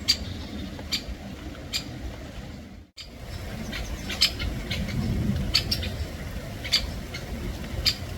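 Great spotted woodpeckers giving short, sharp 'kik' calls at irregular intervals, about one a second at first and more often after a brief break about three seconds in, over a steady low rumble.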